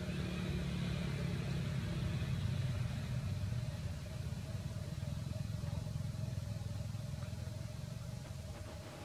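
A steady low engine rumble, like a motor vehicle running nearby, easing slightly after about four seconds.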